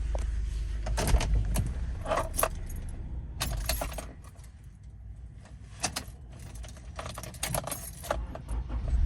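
Keys jingling on the ignition key ring as the key is turned, with several bursts of light metallic clicks; the 1997–2001 Honda CR-V's idling engine is switched off hot and its low rumble dies away a few seconds in.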